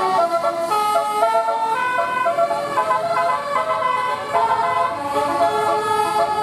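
Bus 'telolet basuri' musical air horn playing a tune: several horn tones sound together and step from note to note every fraction of a second.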